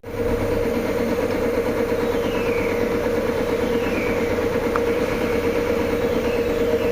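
A steady machine hum from a running motor, with one strong unchanging tone, starting abruptly.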